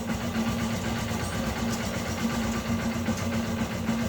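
Honda XR150 single-cylinder four-stroke engine idling cold and steadily, with the exhaust outlet covered so the mechanical noise of the top end can be heard. It runs totally quiet, with no knocking from the cylinder head after the new cam chain tensioner and valve adjustment.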